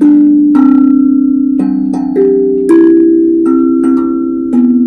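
Steel tongue drum struck with mallets, one note at a time: about eight ringing notes of different pitch at an unhurried pace, each sustaining and overlapping the next as a slow tune.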